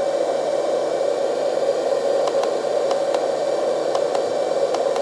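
Hydraulic pump of a LESU 1/14-scale RC CAT 374F excavator running steadily: a constant whirring hiss with a strong mid-pitched hum, with faint light ticks now and then.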